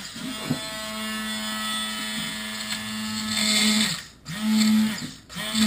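Handheld immersion blender motor running while chopping walnuts in a glass measuring cup: a steady hum for about four seconds, then pulsed on and off in short bursts.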